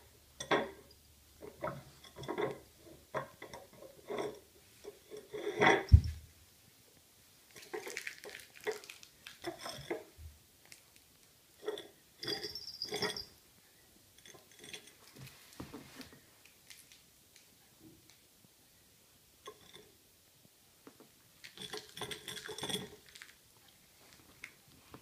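Ridged glass dish clinking, rattling and scraping on a wooden floor as a cat licks it and pushes it with its face, in irregular clusters of small clicks. One loud knock about six seconds in.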